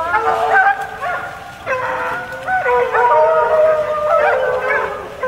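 A pack of Penn-Marydel foxhounds in full cry: many overlapping long, wavering bays and howls at different pitches, the hounds giving tongue as they trail a scent.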